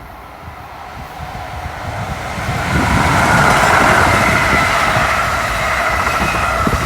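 New Jersey Transit commuter train pulling into the station. Its rumble and rail noise grow louder over the first three seconds, then hold steady.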